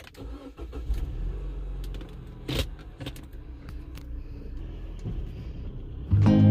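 A car running with a steady low rumble, with a few clicks and knocks, one louder knock about two and a half seconds in. Music comes in near the end.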